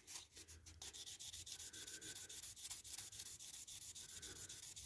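Nail buffer file rubbed quickly back and forth over a clear plastic model window unit. The faint scratchy strokes come at about four or five a second and settle into a steady rhythm about a second in. This is the fifth grade of buffer, sanding scuffs and pitting out of the glazing.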